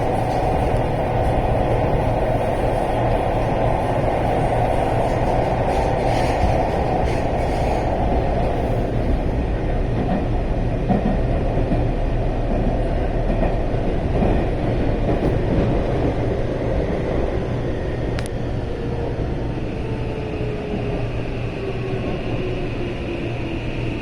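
Seibu Shinjuku Line electric commuter train running on the new elevated track, heard from inside the car: a steady running rumble. In the second half a motor whine falls steadily in pitch as the train slows.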